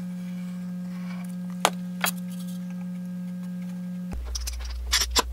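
A steady low tone, a held note of background music, that drops to a lower pitch about four seconds in. Two sharp clicks come a little under two seconds in, and a few light knocks near the end as a wooden step is handled and set in place.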